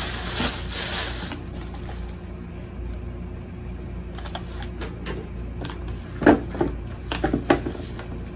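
Plastic packaging rustling and crinkling for about a second, then handling of a cardboard shoebox: a few sharp knocks and taps near the end, over a steady low hum.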